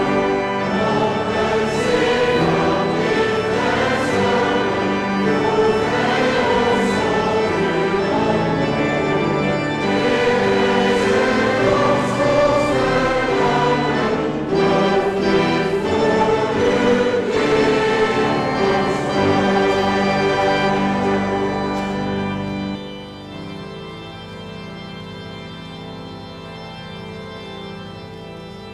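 Congregation and choir singing a Dutch hymn with organ accompaniment. About 23 seconds in the singing ends and quieter held organ chords carry on.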